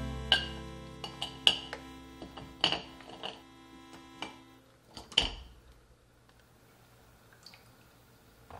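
Tableware clinking: several sharp, ringing clinks at uneven intervals over acoustic guitar music that fades out about five seconds in, followed by quiet room tone.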